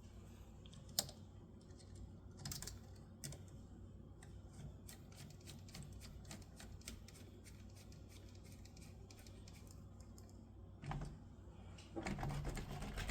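Faint, irregular light clicks and ticks of small RC car parts being handled and turned by hand, with a quick run of small ticks in the middle and a few louder knocks near the end.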